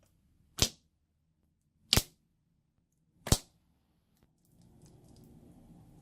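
Slime giving three sharp, loud pops about a second and a half apart as air pockets burst while it is piped and squeezed, followed by faint crackling and squishing near the end.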